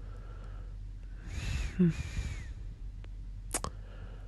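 A person breathing close into the microphone: one breath lasting about a second and a half, with a brief low voiced sound in the middle, then a single short click about three and a half seconds in.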